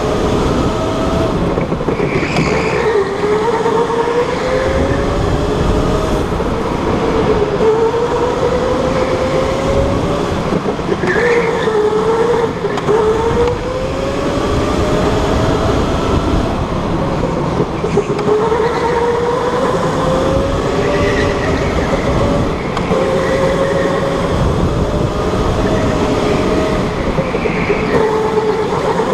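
Electric go-kart motor whining from on board. Its pitch climbs as the kart accelerates and drops back into each corner, again and again, over a steady low rumble.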